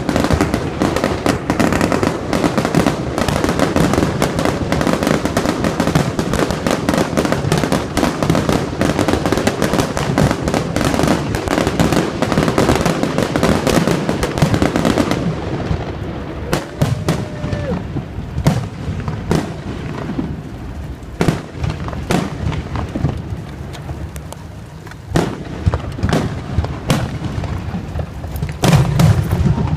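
Fireworks display: a dense barrage of overlapping bangs and crackling for about the first half, thinning to separate booms, with a heavy low rumble of bursts coming in near the end.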